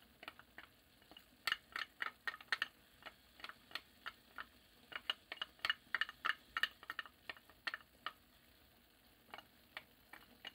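Wooden spatula and a small ceramic bowl clicking and tapping against a frying pan while chopped green onions are scraped in: an irregular run of light taps, busiest in the middle and sparse near the end.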